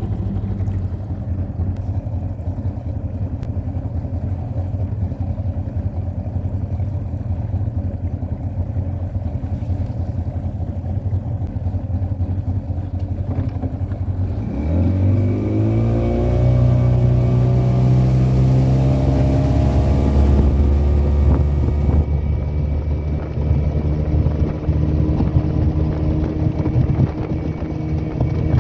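A boat's motor running at low speed, then revving up about halfway through and running on steadily at higher speed.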